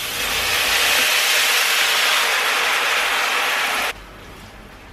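Water poured from a glass into a hot frying pan of oil-toasted vermicelli and rice, hissing loudly as it hits the hot pan and turns to steam. The hiss cuts off suddenly about four seconds in.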